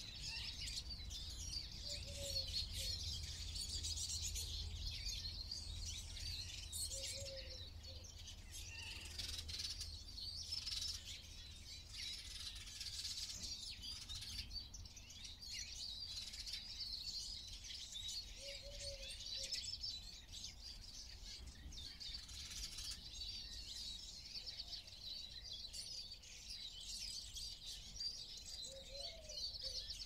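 Several small songbirds singing and chirping together, a continuous high twittering chorus, with a few short, lower call notes every several seconds over a steady low rumble.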